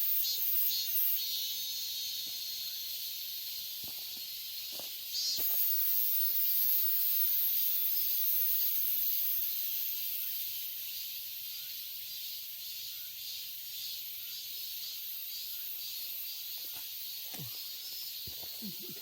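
Cicadas singing in a steady, high-pitched, hissing chorus. A louder, higher-pitched buzz comes in abruptly about five seconds in and fades by about ten seconds.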